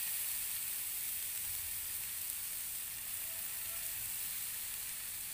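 Grated carrots sizzling steadily in hot ghee in a frying pan, freshly added to the fat.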